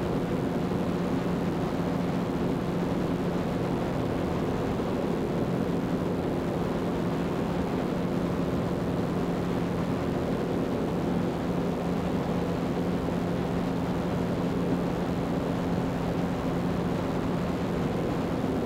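Zenith CH 750 Cruzer light aircraft's engine and propeller droning in cruise flight, holding one steady pitch and level with no change in power.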